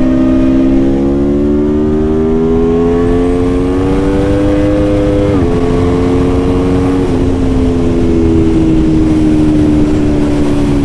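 Aprilia Tuono V4 motorcycle engine under way. Its pitch climbs steadily as the bike accelerates, drops sharply at an upshift about five seconds in, then eases slowly lower as the throttle comes off, over a steady rush of wind noise.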